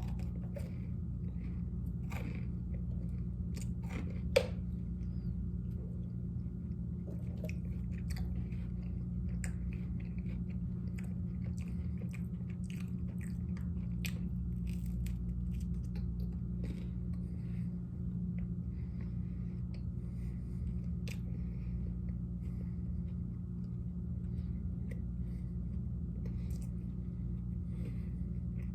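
Close-up chewing and biting of garlic bread, with small crunching clicks throughout, over a steady low hum. One sharp click about four seconds in is the loudest sound.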